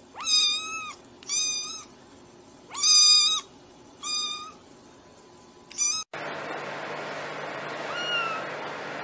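Kitten meowing: five short, high-pitched meows over about six seconds, the third the longest and loudest. After a cut, a steady hiss with one faint, short falling mew near the end.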